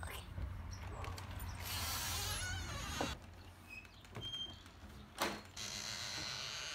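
Doorknobs being gripped, turned and rattled on locked doors, with sharp latch clicks about three seconds in and again about five seconds in.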